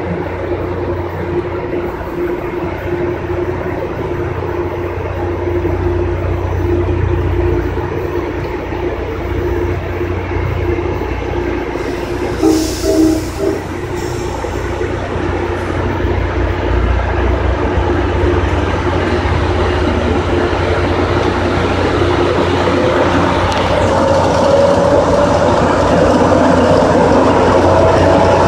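Tri-Rail commuter train of bilevel coaches rolling past, pushed by an EMD GP49 diesel locomotive with a 12-cylinder 645 engine. The steady drone grows louder as the locomotive comes alongside. There is a brief hiss about halfway through, and a rising whine near the end.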